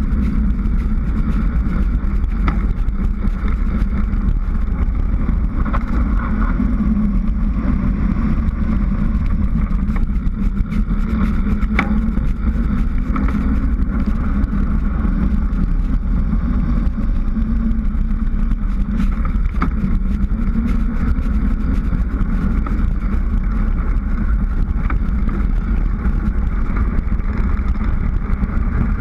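Steady wind rush and road noise on a bicycle-mounted action camera as the bike descends a paved road, heavy in the low end, with a few faint clicks from the bike.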